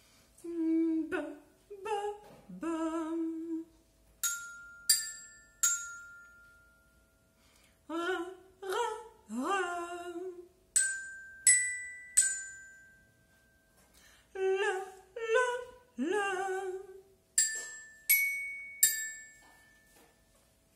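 A woman's singing voice doing vocal warm-up glides, three short sliding phrases, each answered by three ringing notes struck on a small mallet-percussion instrument with a mallet. Each group of struck notes is pitched higher than the one before, stepping up like a staircase.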